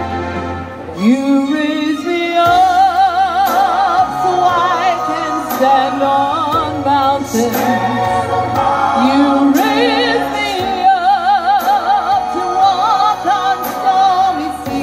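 A woman singing with vibrato into a handheld microphone over a recorded backing track, both amplified through PA speakers. Her voice comes in about a second in, after a short instrumental passage.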